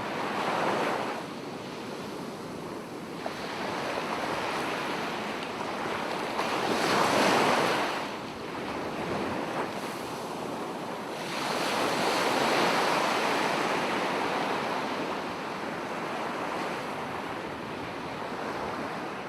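Small waves of a calm sea lapping and washing on the shore. The rushing sound swells and fades in slow surges every few seconds.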